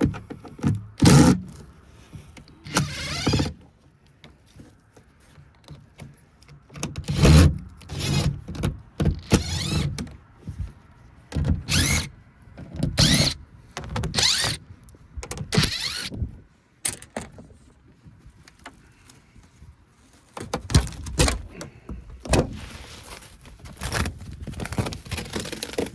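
Power drill running in a dozen or so short bursts, some rising or falling in pitch, with a pause about two-thirds of the way through, as it backs out sheet-metal screws on the heat pump's access panels.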